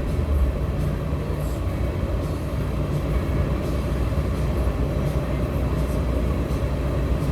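Land Rover Td5 diesel engine running steadily, a low, even drone.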